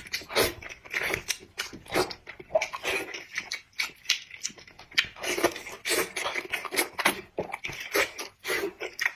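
Close-up eating sounds: a person chewing and biting food with irregular wet mouth smacks and clicks, several a second.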